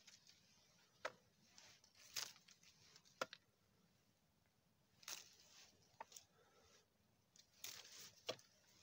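A knife cutting guelder rose (viburnum) berry clusters off the bush, with the branches and dry leaves rustling: a handful of sharp snaps and short rustles, spaced a second or so apart.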